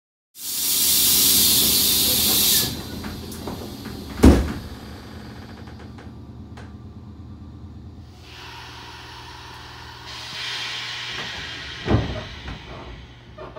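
Loud hiss of compressed air from a Nankai 10000-series train's air system, then a sharp thump about four seconds in as the train's doors shut. A second, softer hiss follows, and another thump comes near the end.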